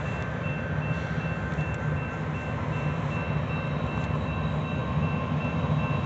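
Approaching CSX freight train, led by a GE ES40DC diesel-electric locomotive, rumbling steadily and growing slightly louder as it nears. A thin high tone pulses on and off evenly throughout.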